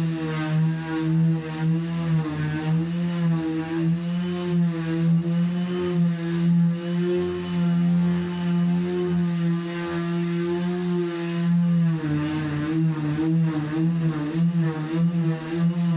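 Cordless battery sander running, pressed on the painted wooden top of a chest of drawers to take it back to bare wood. Its motor whine wavers in pitch as the pressure changes, and dips briefly about twelve seconds in.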